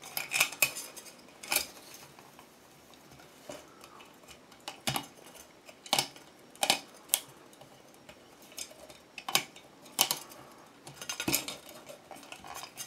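About a dozen sharp, irregularly spaced metallic clinks and clicks as the loose metal base of an old ceiling light fixture and its wires are handled and plastic wire nuts are twisted off.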